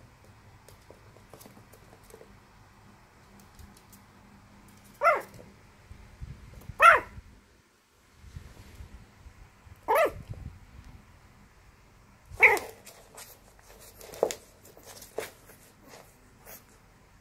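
Puppy barking: four sharp, short barks a couple of seconds apart, then a few softer yips near the end. The barks are play-soliciting, an invitation to play.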